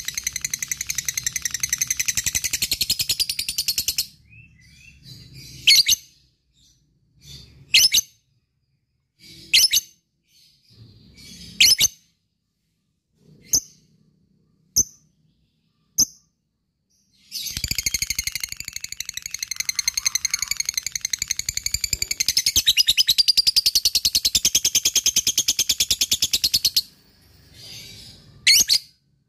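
Lovebird ngekek: a rapid, unbroken chattering trill for about four seconds, then a string of single sharp chirps, then a second long trill lasting about nine seconds, and a couple more chirps near the end.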